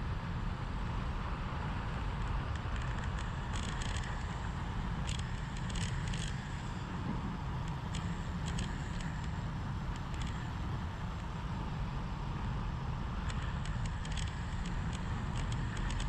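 Wind rushing over the camera microphone of a road bike descending at speed, with tyre noise on the asphalt. Scattered bursts of small crackling clicks come and go several times.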